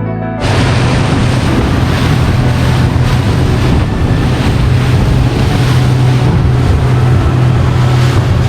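A motorboat's engine running steadily under way, a constant low hum under water rushing past the hull, with wind buffeting the microphone. Background music cuts off about half a second in.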